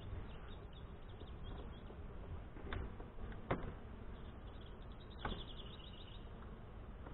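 Honey bees buzzing around an open hive, with three sharp wooden clicks as a hive tool pries frames loose in the brood box.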